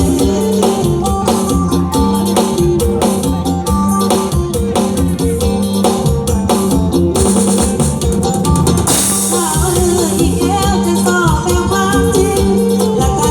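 Thai band music in an instrumental passage with a steady drumbeat and percussion; about nine seconds in a cymbal crash, then a lead melody with bending notes comes in.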